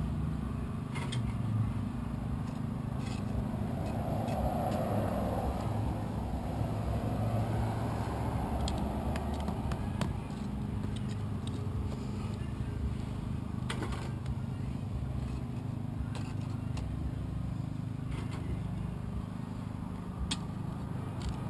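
Steady low rumble like a motor vehicle's engine running nearby, with a few faint clicks and scrapes of charcoal briquettes being moved with metal tongs.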